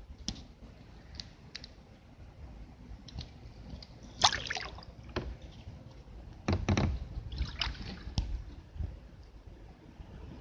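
Kayak paddle strokes: the blades dip and splash in calm water at an irregular pace, with a few sharper knocks among them. The loudest splashes come about four seconds in and again about six and a half seconds in.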